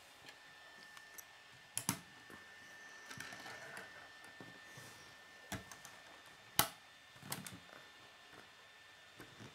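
K'nex plastic rods and connectors being handled and snapped together: about half a dozen separate sharp clicks, the loudest a little past halfway, with soft handling noise between them.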